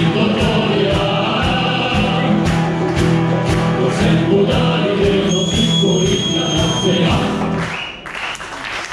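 Live band playing a song with a choir of male voices singing together over a steady beat of about two strokes a second; the music ends near the end and the crowd begins to applaud.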